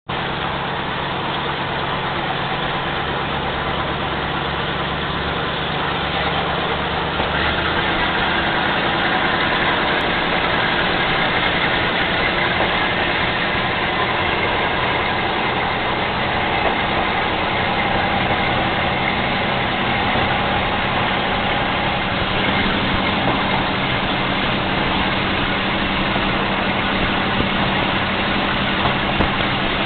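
DMH17C diesel engine of a KiHa 22-type railcar running under way, heard from aboard the moving car. The engine note changes about seven seconds in, then holds steady.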